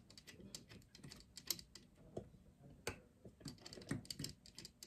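Faint, irregular small clicks and taps of metal screws and carburetor parts being handled as the fuel bowl screws are started by hand into a Holley 4150 carburetor.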